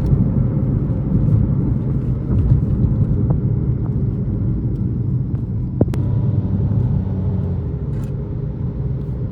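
Steady low rumble of a vehicle on the move, with a single short click about six seconds in.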